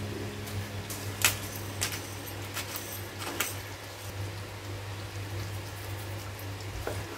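Seasoning being shaken over a pan of bechamel sauce: about half a dozen sharp clicks and taps over a steady low hum.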